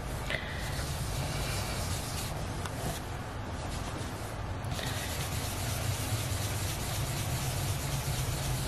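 Stampin' Up! blending brush rubbing over an ink pad and across cardstock: a steady scrubbing swish as ink is loaded onto the brush and blended onto the paper.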